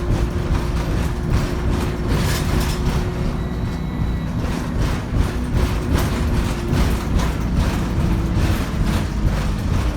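Heard from inside an ADL Enviro 200 single-deck bus under way: the diesel engine and Voith three-speed automatic gearbox give a steady low drone, with body rattles and knocks throughout. A faint high whine comes in briefly about three seconds in.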